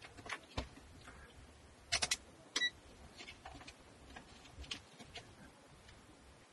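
Handling a digital multimeter and its test leads: scattered light clicks and taps from the probes and rotary dial, with a quick group of three clicks about two seconds in. A very short high beep from the meter follows just after.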